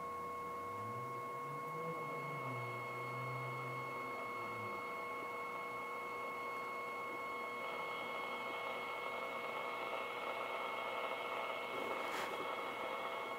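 AM radio reproducing a steady test tone from a function generator, with a faint hiss that grows louder about eight seconds in as the loop antenna is adjusted. A brief click near the end.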